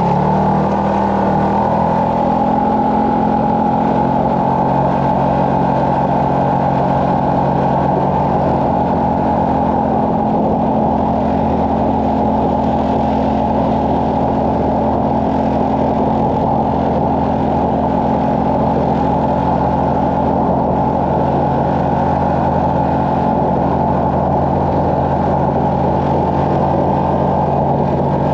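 Engine of a tracked side-by-side UTV running steadily under load through snow, its pitch rising over the first couple of seconds and then holding, with a dense rushing noise over it.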